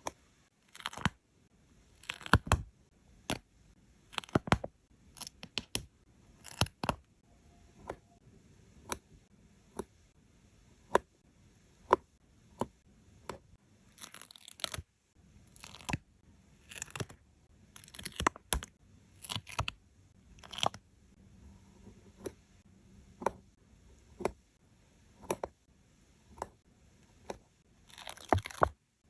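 Stickers being peeled off their backing sheet and pressed down onto paper: a run of crisp crackles, peels and taps, irregular, about one every half second to second.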